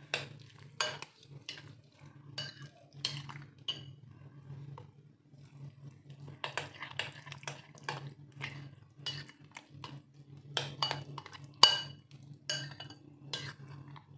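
Metal spoon clinking against a glass bowl while stirring a thick yogurt raita. Irregular sharp clinks come a few a second, with a short pause about five seconds in. One clink near the end is the loudest.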